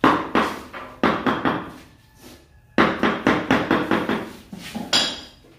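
A hammer tapping floor tiles down into a wet cement bed. It strikes in quick runs of knocks, about four a second, with short pauses between the runs.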